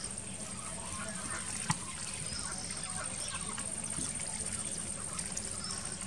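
Domestic ducks dabbling in shallow weedy water: many small splashes and bill clicks as they sift the mud, with one sharper click a little under two seconds in.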